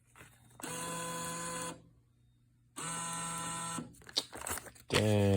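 Cigarette vending machine's bill validator motor running twice, each time for about a second: the five-dollar bill is pulled in and then pushed back out, rejected.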